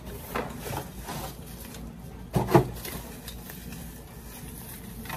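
Handling noise from unboxing a camera tripod: the cardboard box scrapes and rustles as the bubble-wrapped tripod is slid out, with one louder thump about two and a half seconds in.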